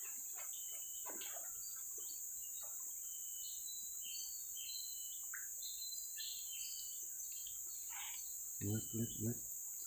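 Steady high-pitched drone of insects, with scattered short bird chirps over it. Three short low voice sounds come near the end.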